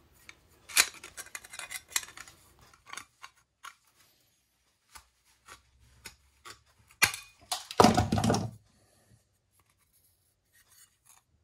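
Tin snips cutting thin stainless steel sheet: a run of sharp snips and clicks in the first couple of seconds, scattered ticks after, and a louder metallic clatter about two-thirds through.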